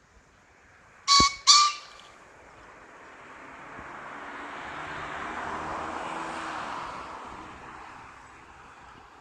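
A male green pheasant gives its territorial crow: two loud, harsh notes in quick succession about a second in. A rushing noise then swells over a few seconds and fades away.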